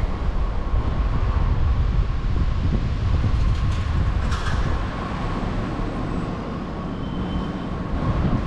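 Outdoor city ambience: a steady low rumble with a faint steady higher tone above it.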